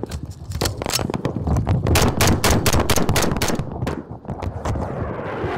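Gunfire in a firefight: rapid, irregular rifle and machine-gun shots, single and in quick bursts, densest about two seconds in. Near the end a steady rushing noise sets in.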